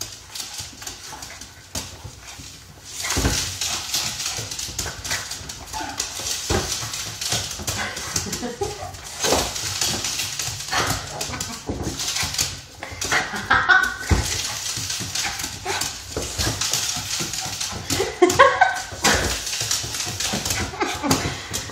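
A small dog running laps on a wood floor, its claws clicking and skittering, with a few short high cries from the dog about two-thirds of the way in and again near the end.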